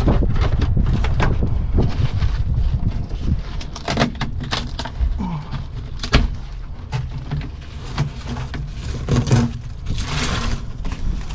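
Wind rumbling on the microphone, with scattered knocks and scrapes as rotted debris is pulled out of an old truck's cab floor, and a short rustle about ten seconds in.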